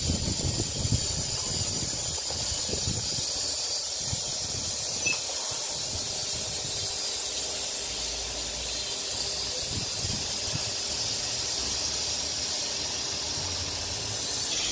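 4-axis CNC router's X and Y axes travelling back to the home position: a faint low motor hum under a steady hiss.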